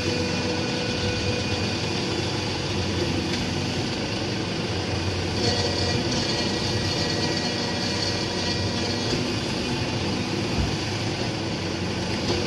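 A motor or engine running steadily with an even drone that does not change in speed.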